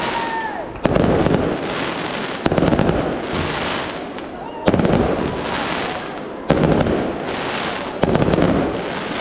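Aerial fireworks going off: five sharp shell bursts about every one and a half to two seconds, each trailing into a long crackling sizzle from glittering stars. A whistle tails off in the first moment.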